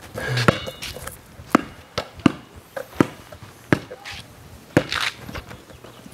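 Sharp, irregular thuds and slaps on a concrete driveway, about seven in six seconds, from a basketball bouncing and feet in sandals stepping.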